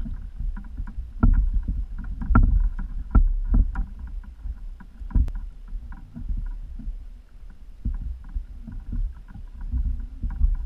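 Water slapping and sloshing against the hull of an outrigger fishing kayak at sea, with irregular low knocks and thuds and faint light ticking.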